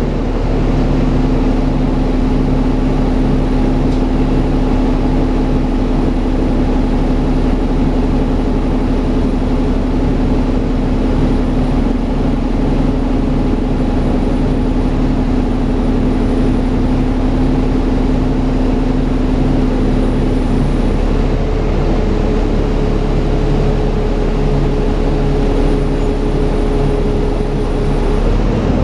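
Dennis Trident 2 double-decker bus's diesel engine running, with the steady vacuum-cleaner-like 'hoover' whine of its cooling fan. About two-thirds of the way through, the steady lower note stops and a higher steady note takes over.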